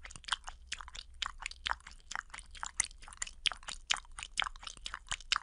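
Cat lapping water from a pet water fountain: a quick run of small wet clicks, about five laps a second.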